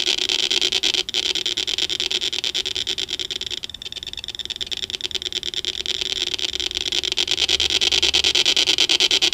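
Circuit-bent ray gun toy sound circuit playing through a small 20-ohm speaker: a rapidly pulsing, buzzy electronic drone. It dips about four seconds in and swells again near the end.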